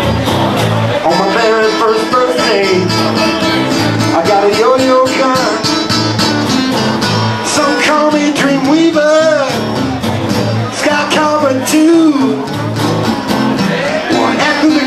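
Acoustic guitars playing an instrumental blues break: a steady thumbed bass-note pattern under a lead line of bent, wavering notes.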